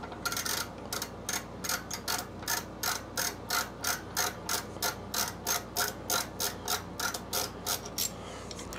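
Ratcheting tap wrench clicking steadily, about three clicks a second, as a tap is backed out of a freshly cut helicoil thread in the aluminium of a Honda GCV160 engine.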